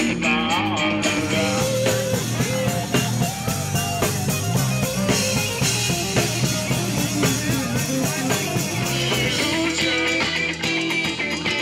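Live rock band playing amplified: electric guitar over a steady drum kit beat.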